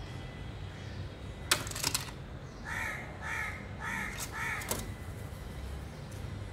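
A crow cawing four times in an even series, each call short and arched. A cluster of sharp clicks comes just before the calls, and another click at the last call.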